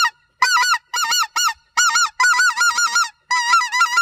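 Riceland 3/4-bore specklebelly goose call blown in four quick runs of high, up-and-down yodeling notes, imitating the laughing call of a specklebelly (greater white-fronted) goose.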